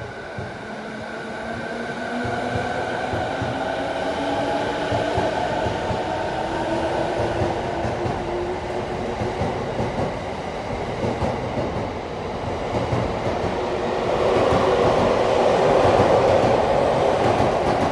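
JR East E217 series electric train pulling away from the platform: its traction motors whine in several tones that rise steadily in pitch as it accelerates, over wheel-on-rail noise that grows louder as the cars pass close by, loudest near the end.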